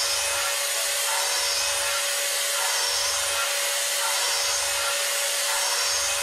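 CNC end mill trochoidally milling a titanium blisk, cooled with liquid nitrogen through the tool and MQL. It makes a steady noisy cutting sound with one constant mid-pitched tone, and a low pulse comes back about every second and a half.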